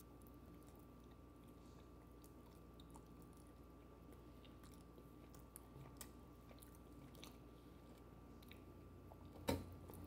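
Faint chewing of microwaved pizza, with small scattered mouth clicks and a sharper knock near the end.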